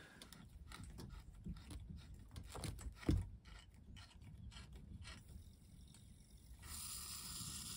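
Faint clicks and scrapes of a hand tool working a valve on copper heating pipework, with one sharper knock about three seconds in. A steady hiss starts near the end.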